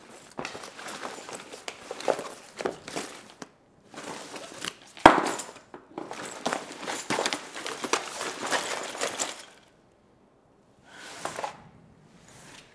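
Rummaging through a fabric backpack: clothes and packed items rustling, clicking and knocking against each other, with one sharp knock about five seconds in. The rummaging stops for about a second, then comes back in two short rustles.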